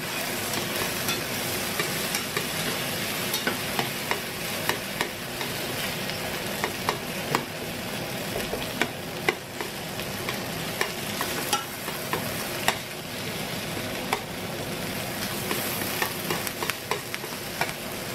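Onions and tomato paste sizzling steadily in a frying pan while being stirred, with metal tongs clicking against the pan every second or so; the tomato paste is being toasted in the fat.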